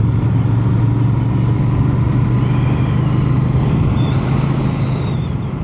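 Royal Enfield Bear 650's parallel-twin engine running at a steady cruise, its pitch holding level, fading out near the end.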